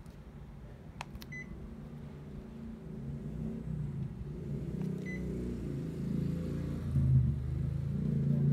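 Panasonic Envio split air conditioner's indoor unit beeping twice, short high beeps about four seconds apart, acknowledging commands from its remote. Beneath them a low rumble grows steadily louder.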